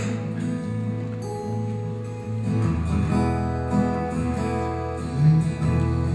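Acoustic guitar strumming held chords in an instrumental introduction, with no singing yet; deeper bass notes fill in about two and a half seconds in.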